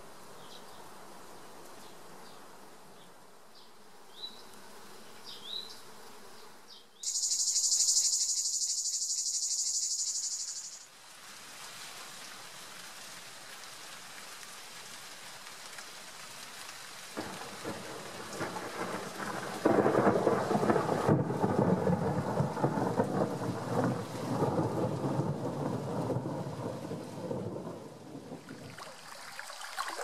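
Thunderstorm: heavy rain with rolling thunder, starting about 17 seconds in and at its loudest around 20 seconds. Earlier, there is a faint outdoor background with a few short chirps, then a loud high-pitched hiss with a fast pulse for about four seconds.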